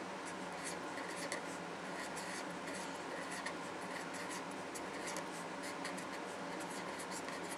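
Pen writing in many short, quick scratchy strokes, over a steady faint background hum.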